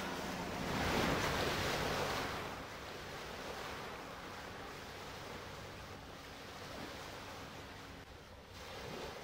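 Choppy sea water and wind on the microphone, a steady rushing noise, with a louder surge from about one to two and a half seconds in.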